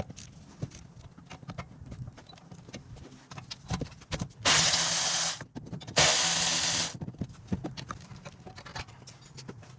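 Two bursts of hissing air from a pneumatic tool, each about a second long, plausibly spinning the 7 mm Allen caliper bolts on the rear brake. Light clicks and knocks of tools on the caliper come between them.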